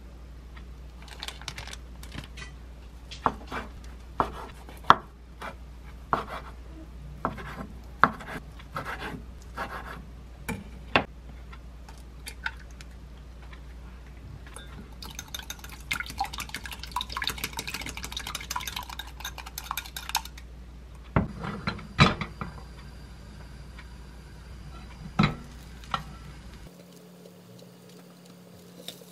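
Kitchen food-prep sounds: for the first ten seconds or so, single sharp knife taps on a wooden cutting board as chicken-breast sausages are cut. Then comes about five seconds of quick steady clinking as an egg is beaten in a glass cup, followed by a few louder knocks.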